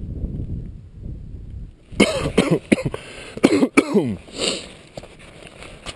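A person coughing and clearing the throat close to the microphone in several short bursts, some falling in pitch, mixed with knocks as the camera is handled. A low rumble of rubbing and wind on the microphone comes first.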